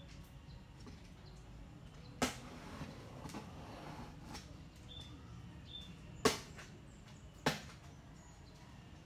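Hands handling a cardboard shipping box: three sharp knocks, about two seconds in, a little after six seconds and again a second later, with a few small ticks between. A few faint, short high chirps are heard in the background.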